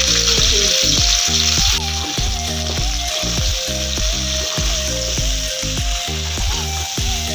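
Freshly added okra sizzling as it fries in hot oil in an aluminium kadai, stirred with a metal perforated ladle. The sizzle is loudest at first and eases a little about two seconds in.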